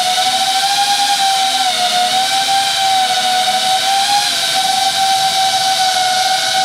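Daguerre V8 FPV cine drone's brushless motors and 5-inch propellers whining steadily in flight, the pitch dipping and rising a little with throttle.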